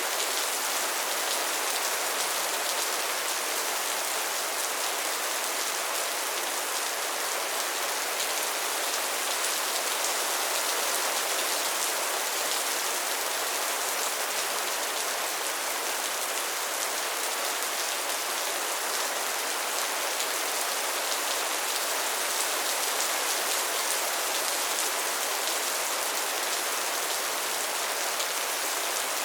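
Steady rain falling, an even, unchanging hiss of many drops.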